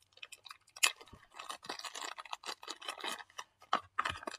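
Hands fitting a USB cable to a small development board: irregular scraping and rustling with clicks, the sharpest click a little under a second in.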